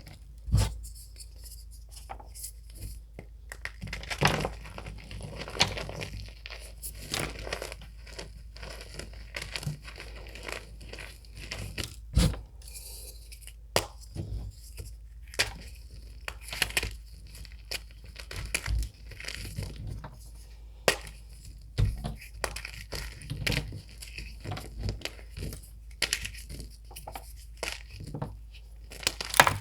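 Reformed gym chalk being crushed and crumbled: a steady run of irregular crunches and crackles, with a handful of sharper, louder cracks.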